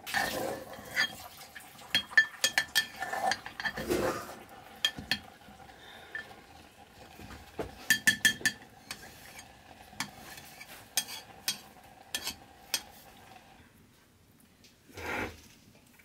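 Metal ladle stirring rice in an aluminium pot, clinking and scraping against the rim and sides in quick clusters of sharp taps. A faint steady hum runs under it, and a single duller knock comes near the end.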